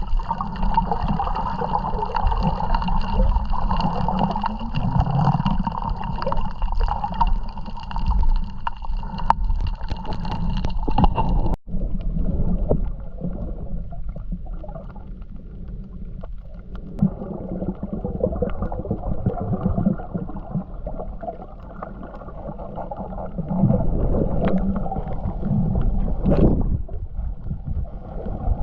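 Boat running on the water, a steady motor hum over wash and rumble. About twelve seconds in the sound cuts abruptly to a duller, muffled rumble.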